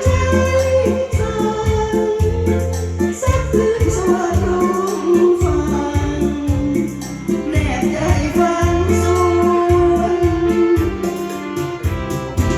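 A Thai song sung over music with a steady beat, with one long held sung note from about eight to eleven seconds in.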